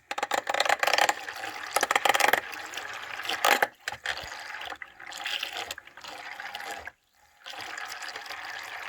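Soapy water swirling and splashing in a small battery-powered makeup brush washing machine as a brush is worked in it, uneven with sharp splashes and clicks, stopping briefly about seven seconds in before going on.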